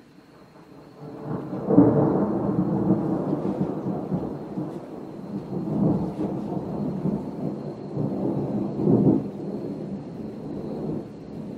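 Long rolling rumble of thunder, building about a second in and swelling several times before fading near the end.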